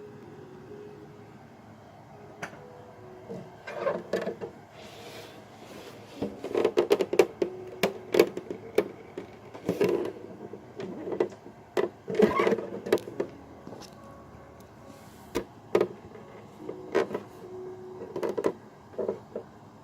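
Plastic parts of an evaporative humidifier being handled and taken apart: irregular clicks and knocks, thickest in the middle, over a low steady hum.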